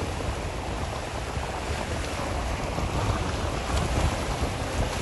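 Steady wind noise on the microphone over the wash of shallow seawater, with water splashing around people wading through it.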